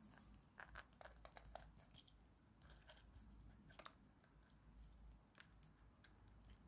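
Near silence with faint, scattered clicks and scratchy handling sounds from fingers working the small plastic parts of an opened action camera's circuit board and lens.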